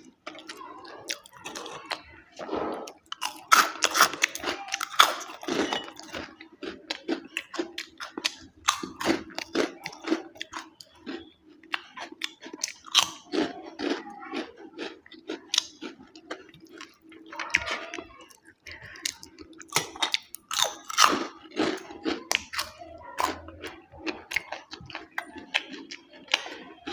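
Close-up chewing and crunching of food, many short irregular crunches and mouth clicks, over a steady low hum.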